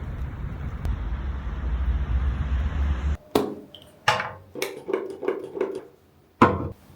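A low rumbling noise that cuts off suddenly about three seconds in, followed by about six sharp knocks of hard objects, the last one the loudest.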